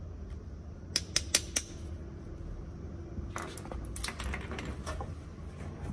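Metal hand tools clicking and tapping against a motorcycle fuel pump assembly: four quick sharp clicks about a second in, then a looser run of clicks and rattles a little later.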